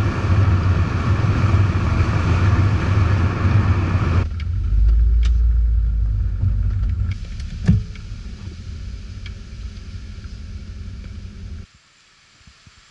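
Mercedes-Benz CLK 430's V8 running with tyre and road noise as the car drives along. About four seconds in it cuts abruptly to quieter cabin sound with a low rumble and a single knock, and near the end it drops to near silence.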